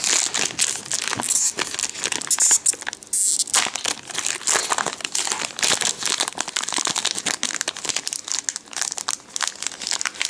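Foil wrapper of a Yu-Gi-Oh Metal Raiders booster pack crinkling and tearing as it is ripped open by hand. The sound is a dense, irregular run of crackles.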